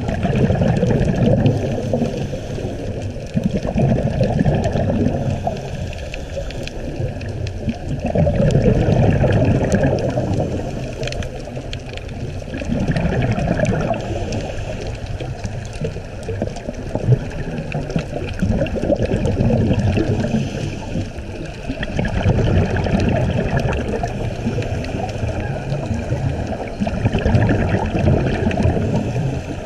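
Scuba diver's regulator breathing heard underwater through a camera housing: rough bubbling noise that swells and fades every four to six seconds.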